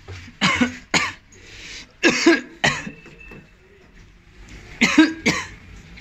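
A person coughing: three double coughs, roughly two seconds apart.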